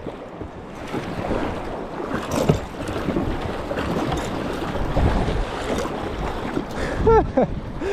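Whitewater rushing and splashing around a kayak on a river rapid, with wind buffeting the microphone.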